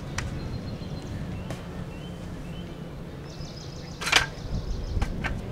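A padded front-window cover for a travel trailer rustling and slapping as it is handled and lifted onto the trailer's front, with a sharp crackle about four seconds in. A steady low hum runs underneath.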